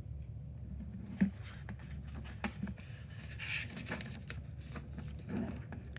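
Paper pages of a hardcover picture book being turned by hand: soft rustling and a few light ticks as the pages are handled and flipped. A steady low room hum runs underneath.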